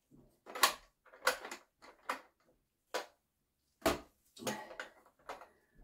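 Hard plastic Bio Bidet Elite attachment clacking and knocking against a porcelain toilet bowl as it is handled and set into position: about eight sharp, irregular knocks.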